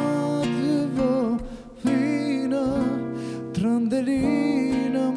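A man singing a slow folk song with vibrato, accompanied by a nylon-string acoustic guitar, with a short breath pause about a second and a half in.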